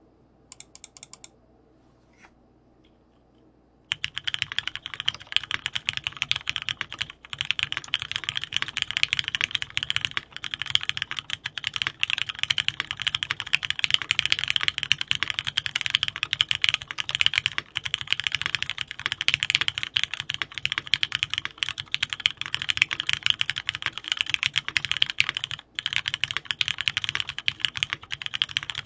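Near silence with a few scattered clicks, then about four seconds in a dense, rapid, continuous clicking begins and keeps going.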